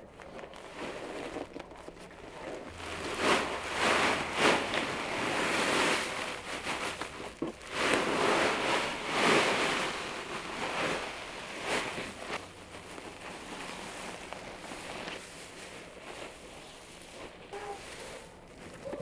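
Soil poured from sacks into a plastic-lined tray, a rushing hiss that swells and fades in several waves. Near the end it gives way to a softer rustle of hands mixing wood shavings into the soil.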